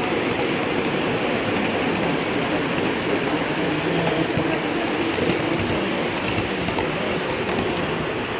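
Model passenger train cars rolling past on three-rail track: a steady rumble of wheels on the metal rails, with scattered faint clicks.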